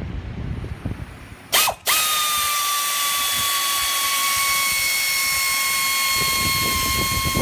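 Pneumatic air ratchet driving the alternator's mounting bolts: a short blip about one and a half seconds in, then a steady high whine with air hiss that runs about six seconds, its pitch dipping slightly near the end.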